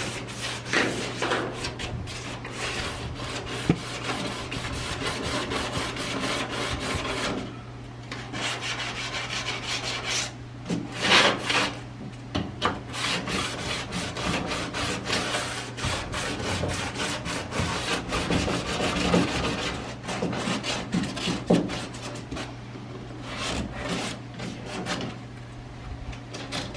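Small 5-inch dual-action orbital sander with 40-grit paper grinding old paint off a steel truck cab, running steadily over a low motor hum. It eases off briefly twice in the first half.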